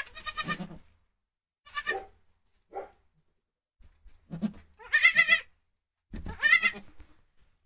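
Newborn goat kid bleating: a series of about five calls, the longer ones high-pitched, with shorter, lower calls between.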